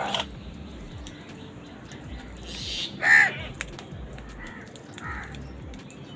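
Crows cawing: one loud, harsh caw about three seconds in, with several fainter caws before and after it.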